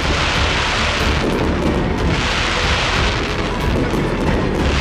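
Fireworks display: booms and crackling bursts, three swells of crackle about two seconds apart, mixed with background music.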